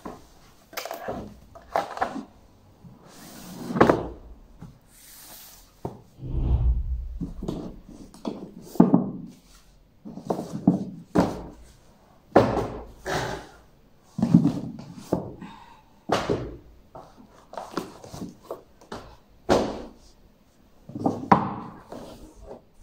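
Books and stacks of paperbacks being taken off a wooden bookstand and set down on the floor: irregular thumps, knocks and paper rustles every second or so, with a longer low rumble about six seconds in.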